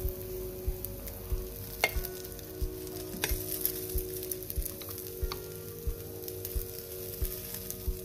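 Batter sizzling as spoonfuls go into the hot cups of an electric takoyaki maker, with two sharp clicks of a metal spoon against the pan, over background music with held notes and a steady beat.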